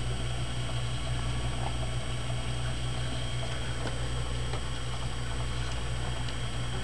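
A steady low hum with a faint high whine above it, and a few faint ticks scattered through.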